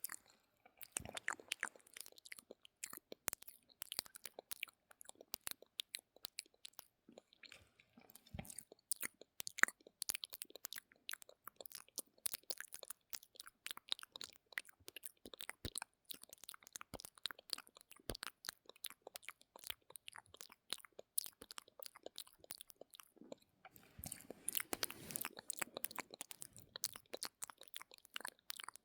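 Close-miked ASMR mouth sounds: a continuous stream of short wet clicks and smacks from the tongue and lips, several a second, getting denser for a couple of seconds near the end.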